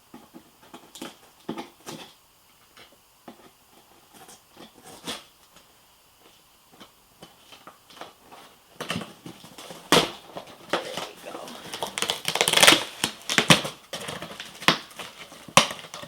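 A shipping box and its packaging being opened by hand: scattered scrapes and taps at first, then from about nine seconds in dense crinkling, ripping and rustling of packaging, loudest around twelve to thirteen seconds in.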